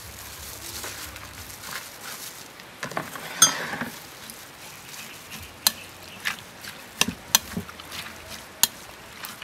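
Shredded vegetables and bean sprouts being tossed and stirred into a wet red sauce in a glass bowl. Over the second half, a metal utensil clinks sharply against the glass about six times.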